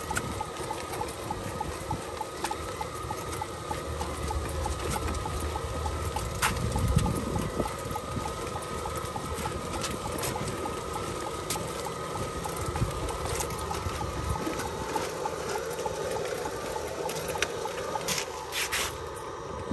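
Burro autonomous farm robot driving, its electric drive giving a steady whine with a faint rapid ticking, over an uneven low rumble of its wheels rolling on the ground and a few sharp clicks.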